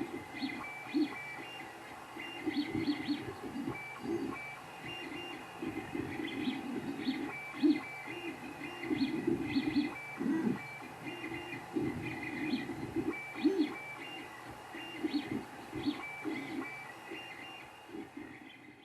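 Creality Ender 3 3D printer printing: stepper motors whine in short, changing tones over a steady fan hum, with irregular low rattles as the head moves. The sound cuts off suddenly at the end.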